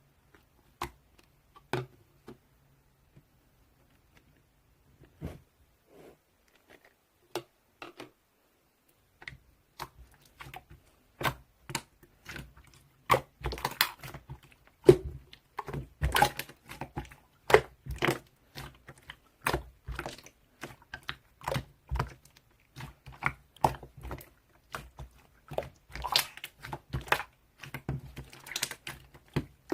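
Slime being squeezed and worked by hand, making sharp clicks and pops. They are sparse at first and come thick and fast from about nine seconds in.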